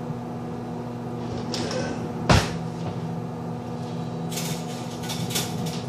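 A kitchen cupboard door knocks shut a little over two seconds in. From about four seconds in comes a quick run of light clinks and clatters of dishes and cutlery, over a steady appliance hum.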